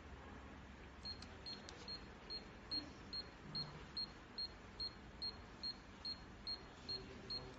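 Minipex apex locator beeping: short, high single-pitch beeps repeating steadily at about two and a half per second, starting about a second in. The beeping is the locator's audible signal of the endodontic file tip's depth in the canal.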